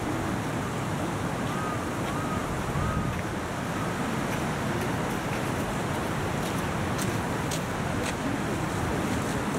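Wind rumbling on the microphone over a steady outdoor background noise. Three short high chirps sound in quick succession about two seconds in.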